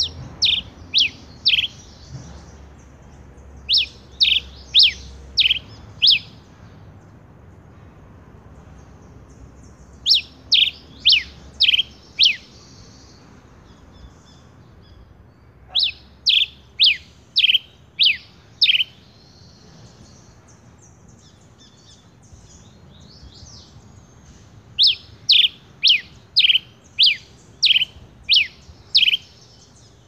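Male red pileated finch singing: five phrases of sharp, clear notes, each note sliding steeply downward, about two notes a second. The phrases grow from four notes at the start to about eight near the end, with pauses of several seconds between them.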